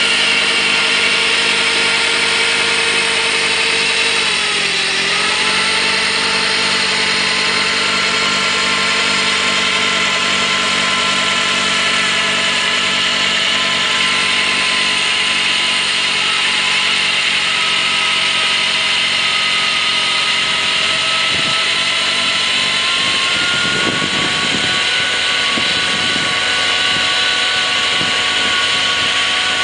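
Kubota B3030 compact tractor's three-cylinder diesel running steadily at working revs, driving a front-mounted snowblower through deep snow, with the whir and hiss of the blower under it. The engine pitch dips briefly about four seconds in, then recovers.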